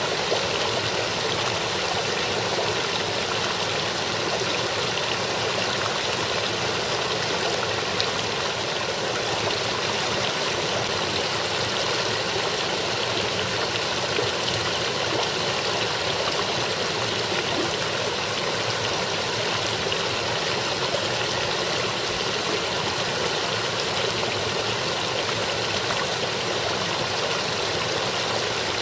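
Small stream running and splashing over rocks between ice and snow, a steady even rush of water.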